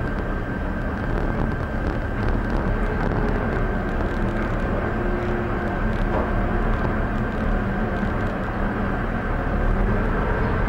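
Steady running noise of a gondola cable car cabin riding its cable, heard from inside the cabin: a low rumble with a faint steady high whine over it.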